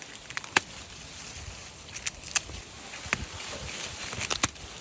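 A series of sharp, irregular clicks and knocks, about eight in all, over a faint steady hiss.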